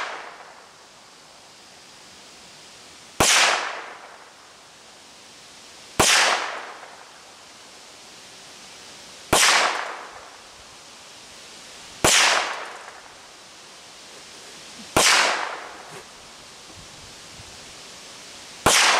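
Ruger Mark III .22 LR pistol fired six times, about one shot every three seconds. Each shot is a sharp crack followed by a short fading echo.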